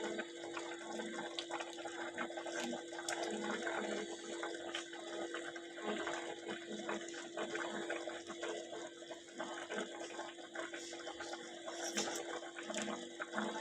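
Liquid bubbling in a pot on a stove: a steady watery hiss over a constant low hum, with a few faint clicks.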